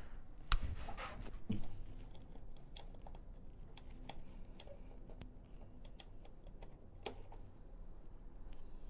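Scattered small plastic clicks and taps as push-pin fasteners are pressed into a Yamaha FZ-09's side intake panel, with sharper snaps about half a second, a second and a half, and seven seconds in.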